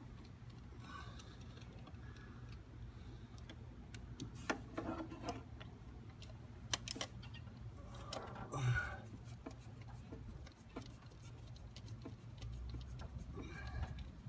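Scattered light clicks and taps of hand work on the engine's ignition parts, over a steady low hum.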